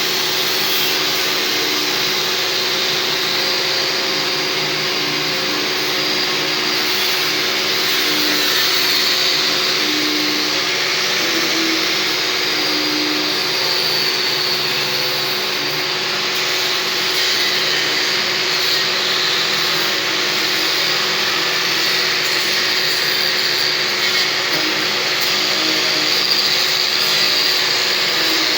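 Electric power tool running continuously, with a pitch that wavers slightly as it is worked, of the kind used to grind or strip rust from iron.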